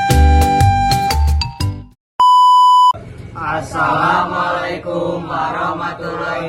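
Bright intro music with bell-like notes over a bass beat stops about two seconds in. After a brief gap comes one loud steady beep lasting under a second, and then a voice chanting or reciting.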